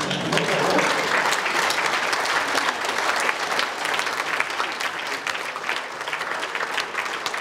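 Audience applauding: a dense clatter of many hands clapping together, easing off a little toward the end.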